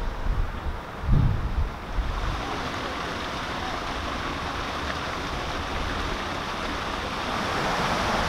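Wind buffeting the microphone in low gusts for the first two seconds, then a steady rushing noise that grows a little louder near the end.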